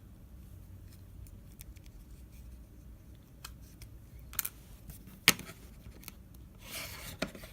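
Small scattered clicks and scraping of a tool working at the edge of an iPhone 5s screen, with one sharper click about five seconds in.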